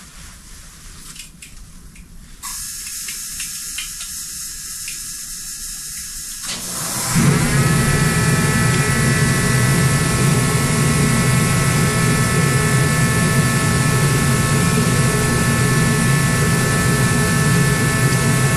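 A motor spins up about seven seconds in and then runs steadily with a loud hiss and a low rumble under it.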